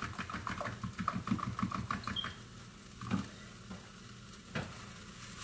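Eggs with a splash of half-and-half being whisked with a fork in a small bowl: quick, even clicks of the fork against the bowl, about five or six a second, stopping about two seconds in, followed by two single knocks.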